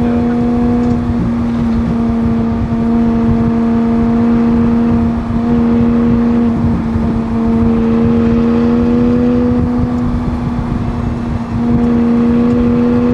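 McLaren 600LT's twin-turbo V8 running at a steady cruise, a loud, even engine drone that holds nearly one pitch and rises slightly about eight seconds in.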